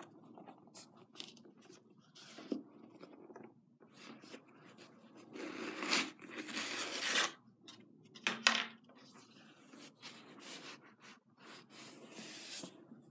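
Hands handling black leather knee-high boots: the leather rubs and scrapes in short spells. There is a longer, louder rasping stretch around the middle and a sharp knock a moment after it.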